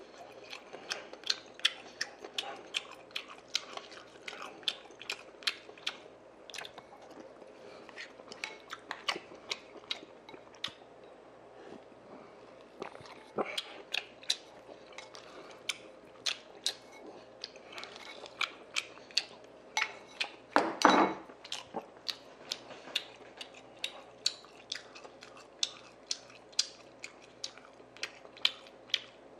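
Close-miked chewing and wet mouth clicks of a man eating spoonfuls of sundae gukbap, Korean soup with blood sausage, pork and rice, irregular and continuous. One louder, longer noise comes about two-thirds of the way through.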